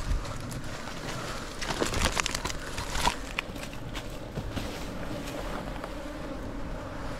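Bees buzzing around a nest that has just been smoked, with a few sharp snaps and rustles about a second and a half to three seconds in.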